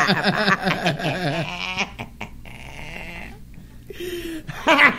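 People laughing in rhythmic pulses that fade after about two seconds into faint, indistinct talk, with a short spoken sound near the end.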